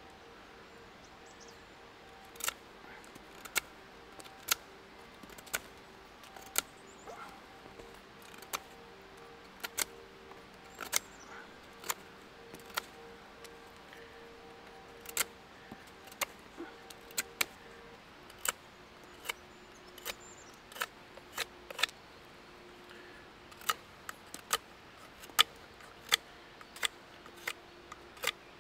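A Swiss Army knife blade cutting into a wooden branch, carving it by hand. Each stroke makes a short, sharp click or snap as the blade bites and a shaving comes away, at an uneven pace of about one stroke a second.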